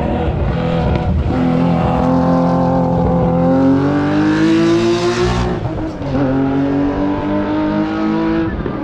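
Race car accelerating hard up a hillclimb course. Its engine note climbs steadily for about four seconds, drops at an upshift about six seconds in, climbs again, and shifts once more near the end.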